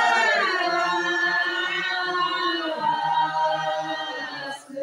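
A group of voices singing together without instruments, holding long notes, with a short break near the end before the singing goes on.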